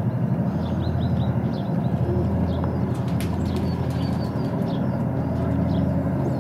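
Long freight train rumbling steadily in the distance as it pulls its loaded wagons, with birds chirping close by.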